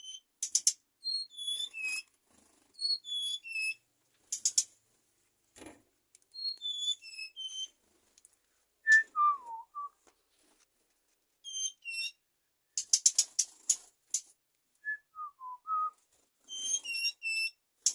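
Suligan songbird singing. It gives repeated short phrases of clear whistled notes that step downward, broken up by bursts of scratchy chatter. Twice, in the middle and near the end, a lower and slower falling whistle comes in.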